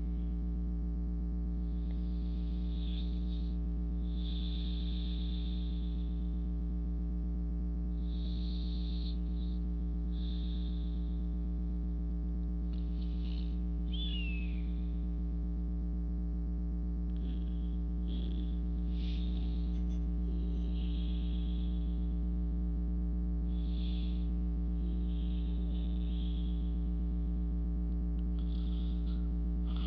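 Steady low electrical-style hum with a few fixed tones above it, and faint short high hisses every second or two.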